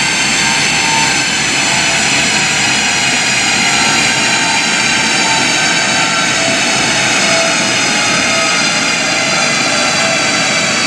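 Classic Mini's 1460 cc A-series engine and straight-cut 5-speed gearbox running hard on a rolling road, with a steady loud whine of engine, gears and rollers whose pitch eases slowly down.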